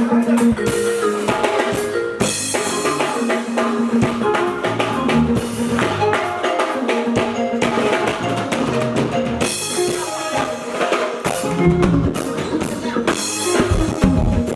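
Live band music driven by a drum kit, with kick drum and snare under held notes from pitched instruments.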